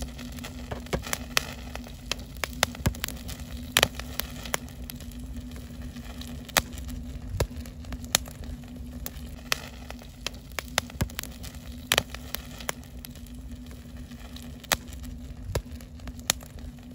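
Wood campfire crackling, with irregular sharp pops over a steady low rumble and a faint steady hum.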